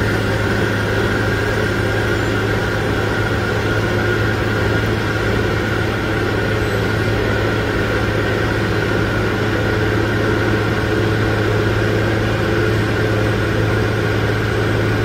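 An engine running steadily: a loud, even drone with a strong low hum and a few fainter higher tones over it.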